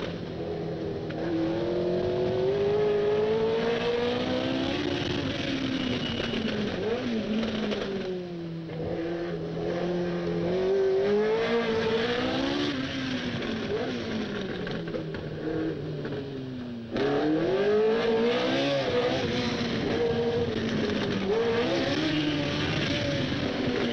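Tyrrell P34's Cosworth DFV V8 racing engine revving hard through the gears, its pitch climbing in each gear and falling back at the shifts and under braking. The sound jumps suddenly louder about two-thirds of the way through.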